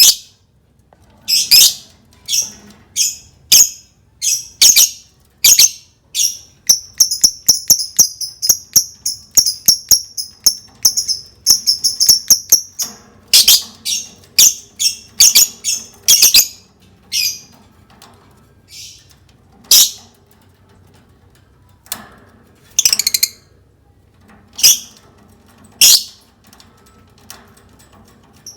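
Lovebird calling with loud, shrill, short chirps, singly and in quick runs, breaking into a dense rapid chatter in the middle, mixed with a run of sharp clicks.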